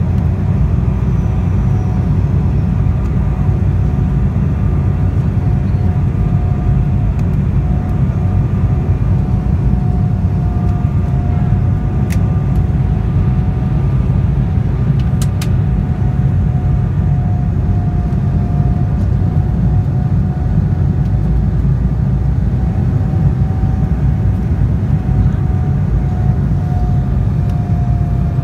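Cabin noise inside an Embraer 190 jet airliner on final approach: a steady, loud low rumble of airflow and the turbofan engines. A steady whine runs through it and wavers slightly in pitch.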